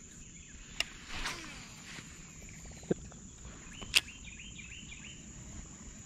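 Three short, sharp pops spread over a few seconds from a topwater popper lure twitched across still pond water, over a steady high insect drone.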